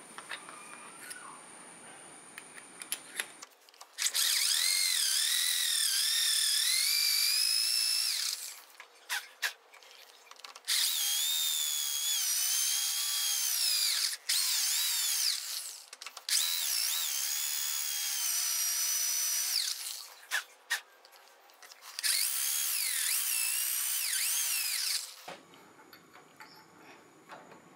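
Power drill boring a twist bit into the head of a metal flange bolt held in a bench vise, in four runs of a few seconds each with short pauses between. The bit cutting the metal gives a high whine that wavers in pitch.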